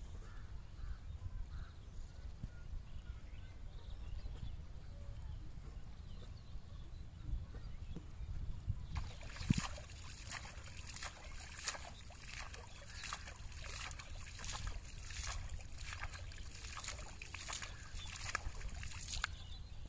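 A hand slapping the surface of pond water again and again, making splashes about twice a second. The splashing starts about halfway through and stops shortly before the end.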